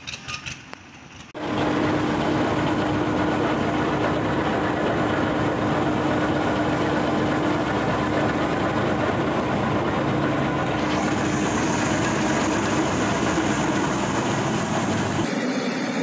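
Combine harvester running steadily under load, heard from the operator's seat, its engine and threshing machinery going while the unloading auger pours grain into a trailer. The noise cuts in suddenly about a second and a half in, after a quieter moment of a tractor moving off.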